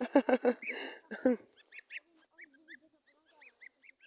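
Domestic geese honking in a quick, loud run of calls for the first second and a half, followed by fainter, short high calls.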